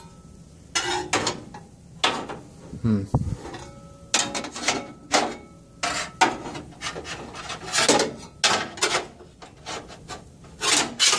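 Metal panel being worked into place in a DEC H9642 rack frame: irregular scraping and knocking of metal on metal, a dozen or so scrapes, some short and some drawn out.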